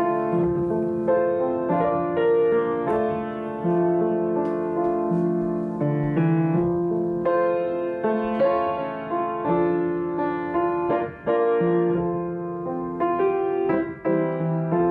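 Piano music, a slow run of held notes and chords that change about once a second.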